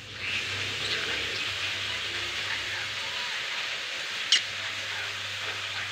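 A budgerigar gives one short, sharp chirp about four seconds in, with a few faint soft chirps before it, over a steady hiss of background noise.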